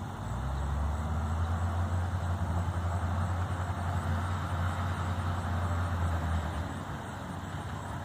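Heavy diesel engine of a wheel loader running as the machine drives, a deep steady drone that eases off about six and a half seconds in.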